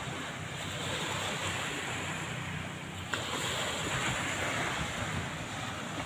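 Small waves breaking and washing up on a sandy shore, with wind buffeting the microphone in an uneven low rumble.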